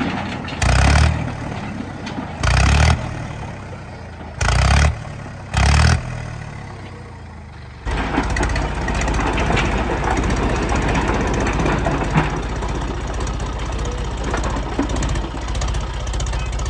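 Tractor diesel engine: several short, loud bursts in the first six seconds, then from about eight seconds in a sudden steady run with a rapid low beat.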